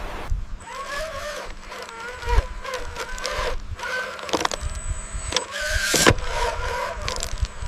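Small electric motors of remote-control construction models whining, their pitch wavering up and down as they work, with a few sharp clicks and knocks in between.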